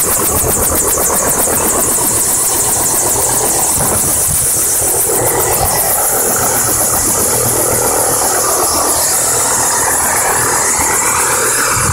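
Bell Huey-type helicopter running on the ground: a loud, steady turbine whine with the fast, even beat of the main rotor blades.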